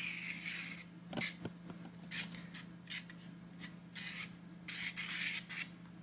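Pastel pencil scratching on UART 800 sanded paper as a horizon line is drawn in dashes. A longer stroke comes at the start, then a run of short scratches, and another longer stroke about five seconds in. A low steady hum runs underneath.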